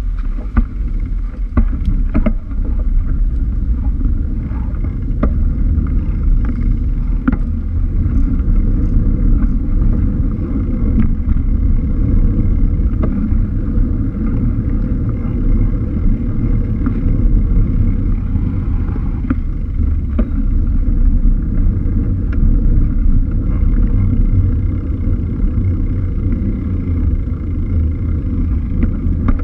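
Wind rumbling on a bike-mounted action camera's microphone while cycling along a city street, mixed with tyre and road noise. Short clicks and knocks come every few seconds as the bike rides over bumps.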